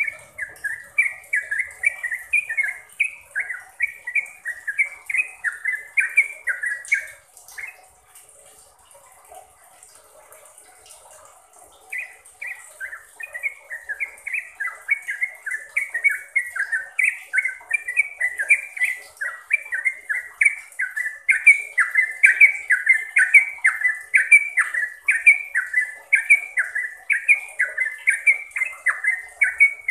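Yellow-vented bulbul (trucukan) singing a long run of quick, bubbly chattering notes, about three a second. It breaks off for a few seconds around eight seconds in, then resumes and sings steadily on.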